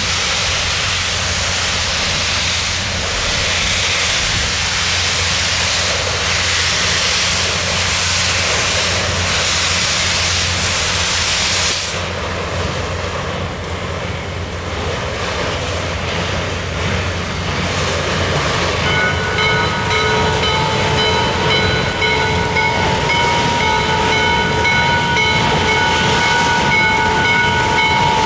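C&O 1309, a 2-6-6-2 Mallet compound steam locomotive, hissing loudly with steam as it pulls away. The hiss stops abruptly about twelve seconds in, leaving the rumble of the working engine and train. In the last third a steady high ringing of several tones sets in over it.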